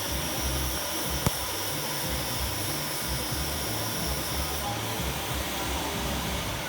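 Lathe running, a steady machine noise with a hiss and an uneven low rumble, and a single sharp click about a second in.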